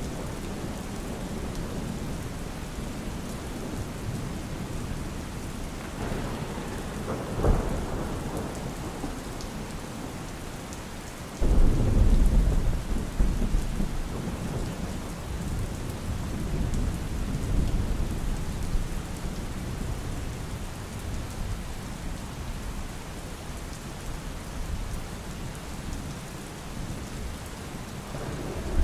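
Steady rain with thunder: a sharp crack about a quarter of the way in, then a sudden loud, low rumble near the middle that rolls on and slowly fades.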